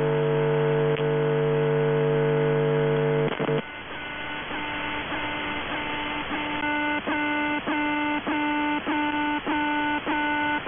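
Shortwave radio signal on 4770 kHz received in upper sideband over static. A steady buzzy tone cuts off about three and a half seconds in, leaving hiss. Later a pulsed tone pattern starts, repeating about every 0.6 seconds with a click at each step.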